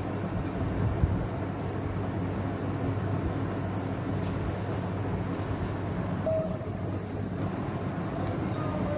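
A steady low hum over a constant rumbling noise, with a few faint ticks.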